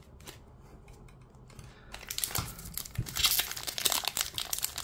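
A foil Pokémon TCG Scarlet & Violet 151 booster pack crinkling in the hands and being torn open along its top edge. The crackle starts about two seconds in and grows louder.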